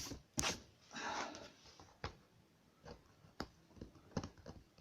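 Cardboard pieces being handled on a work table: a short rustle about a second in, then scattered small clicks and taps.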